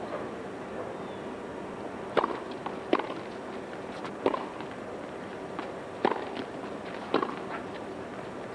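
Tennis ball struck by rackets and bouncing on the hard court during a rally: about five sharp pops from about two seconds in, one to two seconds apart, with fainter ticks between them, over a steady background hiss.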